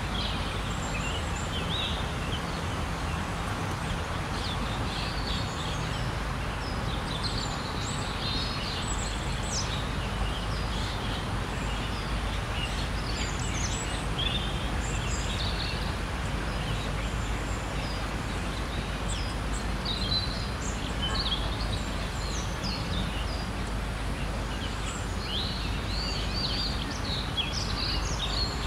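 Park ambience: many small birds chirping and twittering in quick short calls throughout, over a steady low background rumble.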